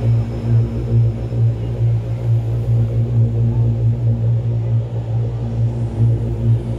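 A deep, steady droning tone with overtones, wavering in loudness, from the light show's music over loudspeakers.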